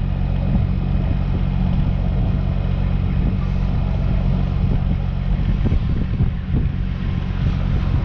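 Wind buffeting the microphone in gusts, over a steady low engine drone.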